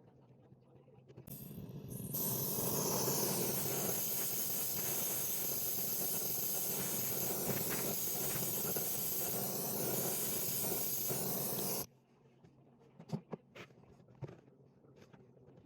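Compressed nitrogen rushing from a tank through a hose into the refrigerant lines, a loud steady hiss that builds up about a second in and cuts off sharply when the valve is shut, with a few small clicks after.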